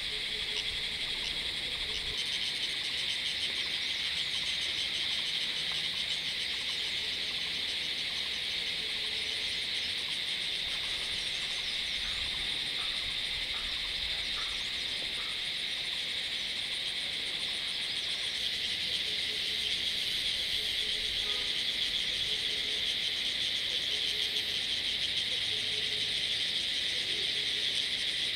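Chorus of cicadas calling, a steady high buzz that grows a little louder about two-thirds of the way in.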